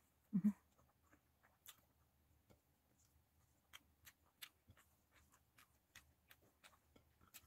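Faint, irregular mouth clicks and smacks of someone chewing, with fingertips picking at fish and rice on a plate. There is a brief low hum-like voice sound in two short pulses just after the start.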